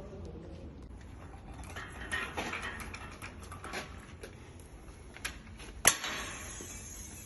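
Hand tools and brake parts clinking and rattling during a front brake pad replacement: a scatter of small metallic clicks, then one sharp clack with a short ring near the end.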